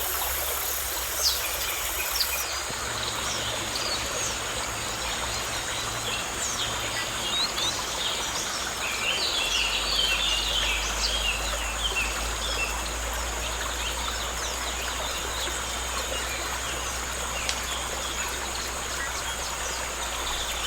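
Natural ambience: many short bird chirps and calls, busiest about ten seconds in, over a steady high insect drone and a constant background hiss.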